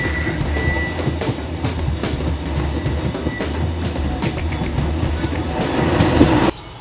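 Passenger train running: a steady low rumble with wheels clacking irregularly over the rail joints. The sound cuts off suddenly near the end.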